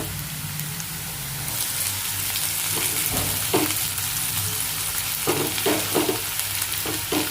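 Sliced onions frying in hot oil in a pan on high flame, a steady sizzle that grows louder about a second and a half in.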